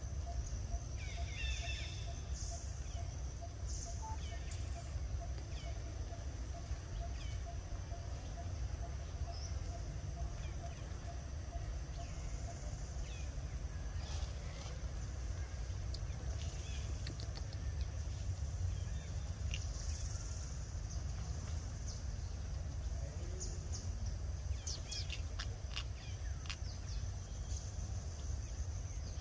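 Outdoor countryside ambience: a steady low rumble under a high, even insect drone, with scattered short bird chirps and a few brief rustles and clicks about halfway through and again near the end.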